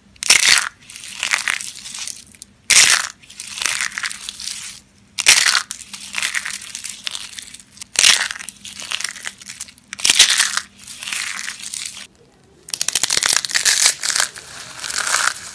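Dry soap being crushed, with a loud crunch about every two and a half seconds, each followed by softer crumbling. Near the end comes a quick run of fine crackles.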